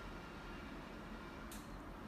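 Faint room tone: a steady low hiss and hum with no distinct sounds.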